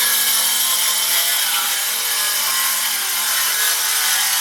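Power saw cutting steadily through the wooden wall sheathing, opening up a rotted section of wall so it can be replaced with a sheet of plywood.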